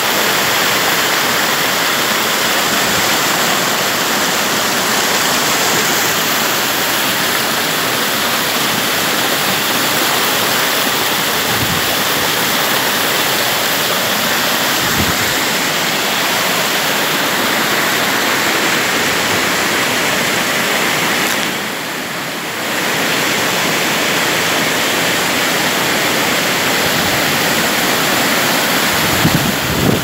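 Steady, loud rush of a rocky creek's waterfall and rapids, white water pouring over rock ledges, deafening up close. The level dips briefly about two-thirds of the way through, then returns.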